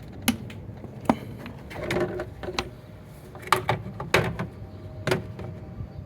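Plastic engine air filter housing of a 2018 Nissan Rogue being closed up, with several sharp clicks and knocks as the cover is pressed down and its clips are snapped shut, and a brief plastic scraping about two seconds in.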